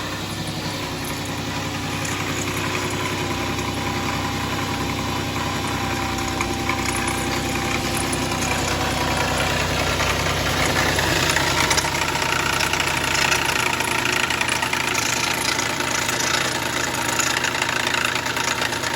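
Dodge Charger 2.7 V6 running rough with a whole bunch of rumbling. The mechanic suspects a failed internal water pump, whose bad bearings threw the timing chain out of time; it sounds terrible. Past the middle the deep hum fades and a harsher, higher grinding noise grows louder.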